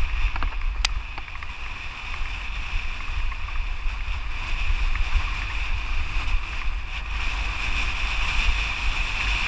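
Wind buffeting the microphone of a mountain bike's action camera during a fast descent on a dirt singletrack, with a steady high hiss of the bike rolling over the trail and one sharp click about a second in.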